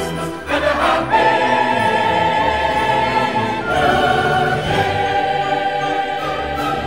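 Background music: voices singing long held notes, changing pitch about a second in and again near four seconds.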